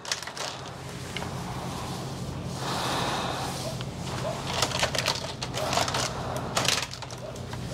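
Steady low machine hum, with a few sharp clicks and knocks of tools being handled about five seconds in and again near seven seconds.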